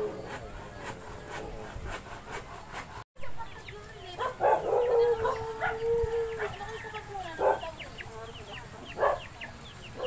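A rooster crows once, about four seconds in: a long held call that drops off at its end. Short high chirps sound around it.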